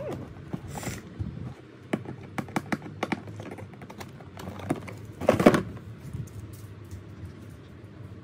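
Scattered light clicks and taps of a cardboard box being handled, with one louder rustle about five seconds in.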